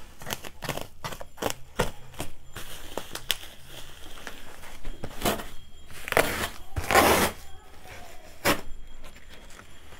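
Small scissors snipping through plastic bubble wrap on a cardboard box: a quick run of sharp snips and clicks, with a couple of longer crinkling tears of the plastic about two-thirds of the way through.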